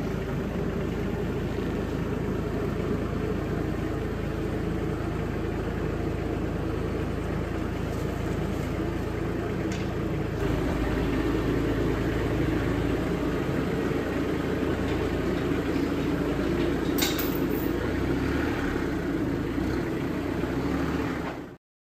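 An engine running steadily at an even speed. It gets somewhat louder about ten seconds in, then cuts off suddenly near the end.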